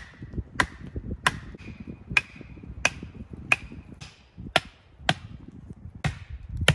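Wooden stakes being pounded into the ground: about ten sharp knocks, roughly one every two-thirds of a second, a few of them followed by a brief ringing tone.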